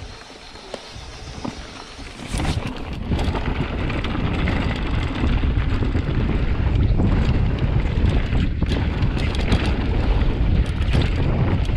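Wind rushing over the camera microphone and tyres rolling on a dirt-and-gravel trail as a downhill mountain bike picks up speed, with scattered clicks and rattles from the bike. It gets much louder about two seconds in and stays loud.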